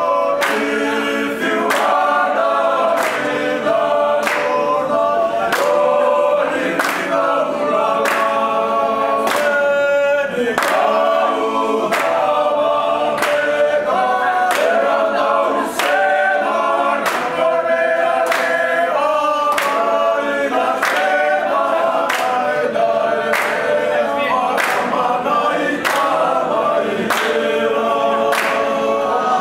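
A group of young men singing together unaccompanied in several-part harmony, keeping time with steady hand claps a little faster than one a second.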